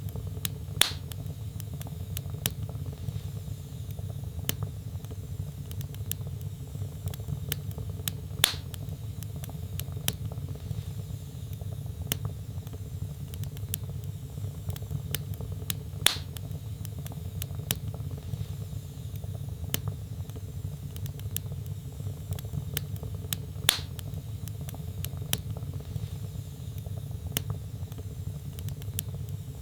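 Wood fire burning in a fireplace: a steady low rumble of flames with frequent small crackles and a louder pop about every seven and a half seconds.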